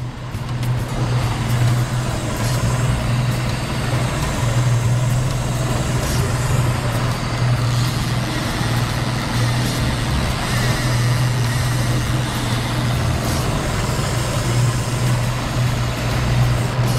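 Mercury 150 outboard motor running steadily at trolling speed, a constant low drone, with the rushing hiss of the wake churning behind the boat.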